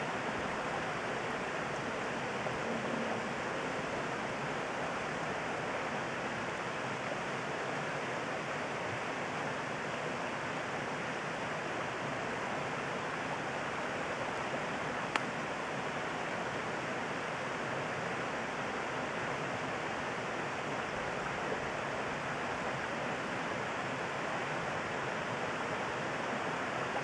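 Steady rushing of a shallow river flowing over stones, with one short sharp click about fifteen seconds in.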